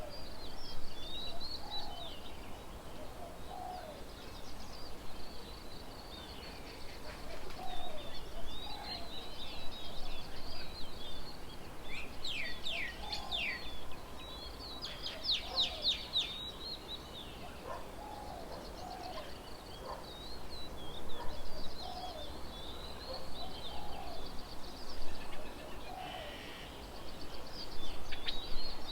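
Several birds chirping and calling around a garden bird table: many short high chirps and lower short calls, with two fast rattling trills about halfway through.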